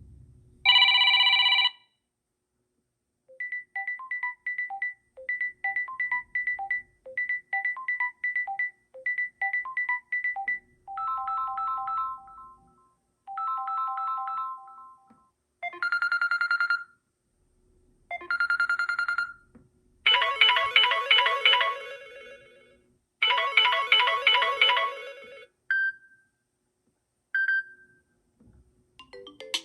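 Samsung Galaxy A04s stock ringtones played one after another: short electronic melodies, each a phrase that repeats. A brief loud chord sounds about a second in, then one light tinkling tune repeats for about seven seconds, then three other tunes play twice each, the last a fast trill, with two short blips near the end.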